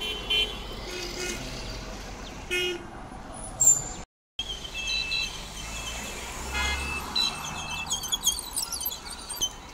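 City street traffic heard from a moving scooter, with many short horn toots and beeps from passing vehicles, thickest near the end. The sound drops out for a moment about four seconds in.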